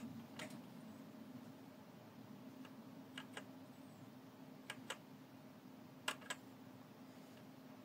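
Faint key presses on a Blueforce Majesty mechanical keyboard with red linear switches: a handful of soft clicks, mostly in pairs, as key combinations are pressed to cycle the lighting modes. A faint steady hum sits underneath.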